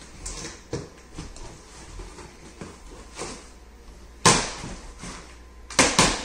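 A knife slitting the packing tape on a cardboard box: irregular scratchy strokes, with a sharp rip about four seconds in and two more near the end.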